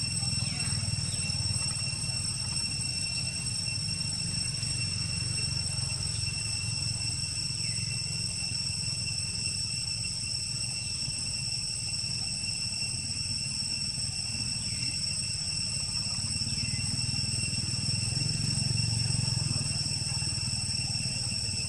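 Steady outdoor background: a low rumble under a continuous high-pitched whine with overtones, with a few faint short falling chirps now and then.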